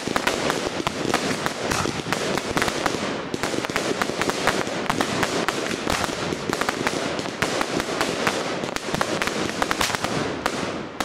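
Fireworks going off in a dense barrage: rapid bangs and crackling, several a second, without a break.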